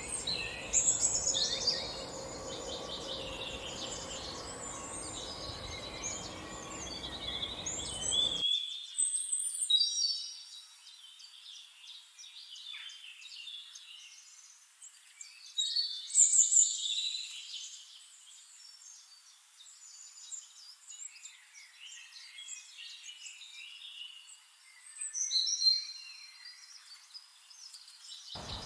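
Several songbirds singing and chirping over one another, with rapid warbling phrases and sharp high calls; the loudest bursts come near the start, around a third of the way in, midway and near the end. A low background hiss and faint hum under the birds stop abruptly about a third of the way in.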